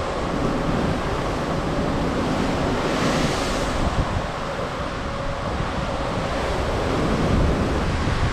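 Wind buffeting the microphone over the steady rush of sea waves churned up by a moving cruise ship. The rush swells louder and hissier for a moment about three seconds in.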